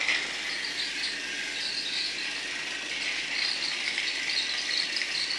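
Battery-powered toy Thomas the Tank Engine running along its plastic track: a steady whir from its small motor with a light rattle of the wheels on the track.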